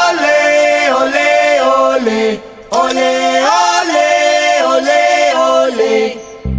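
A group of voices chanting two long, held sung phrases, stepping up and down in pitch with a short break between them. Band music with guitar comes in at the very end.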